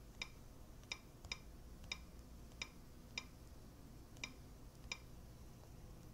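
Typing: eight faint, sharp key clicks at an uneven pace as a Wi-Fi password is entered.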